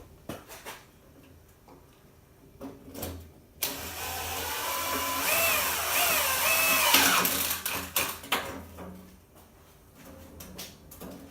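Sheet-metal dryer vent duct being worked and joined: a few light metal clicks, then about four seconds of loud rasping metal noise with a wavering squeal partway through, fading back to a few clicks.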